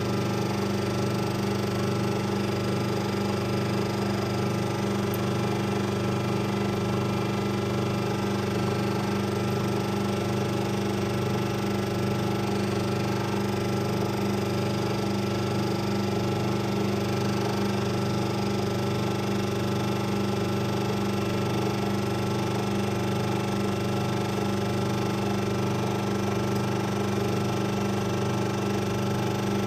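Compression testing machine running with a steady, even hum while it loads a wooden block parallel to the grain.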